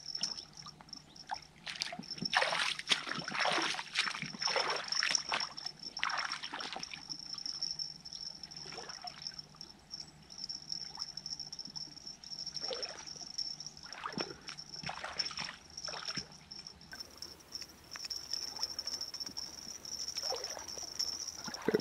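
River water splashing and sloshing in irregular bursts in the shallows as a hooked fish is played on a feeder rod and thrashes at the surface near the bank.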